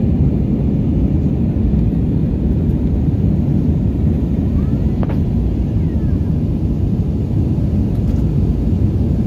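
Steady low cabin noise of an Airbus A321's jet engines and rushing air, heard from inside the cabin by the wing during the climb after takeoff. A faint click comes about halfway through.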